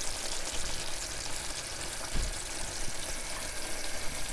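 Thick fish curry simmering in a clay pot on the stove, a steady sizzling crackle of small bubbles. A dull low thump about two seconds in.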